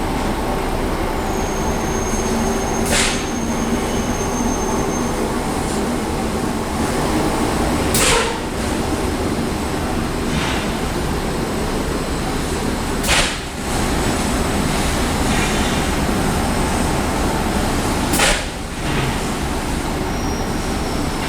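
Steady factory machinery din at a powder-coating line, with a short sharp hiss repeating about every five seconds and a thin high whine for a few seconds near the start.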